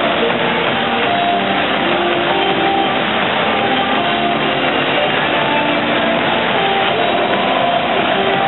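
Rock music with guitar playing over stadium loudspeakers, above a steady crowd hubbub.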